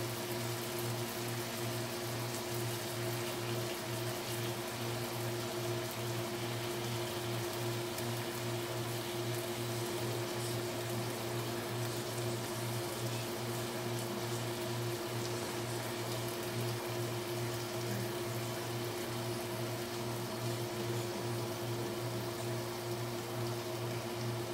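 Beef sizzling and bubbling in sauce in a nonstick frying pan, a steady hiss over a constant low hum.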